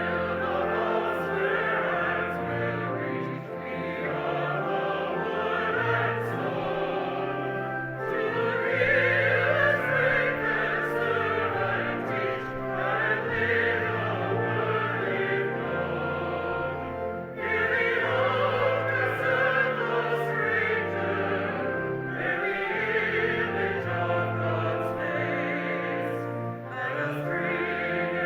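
Choir singing a verse of a hymn with accompaniment, in long phrases of held notes that break about every nine seconds.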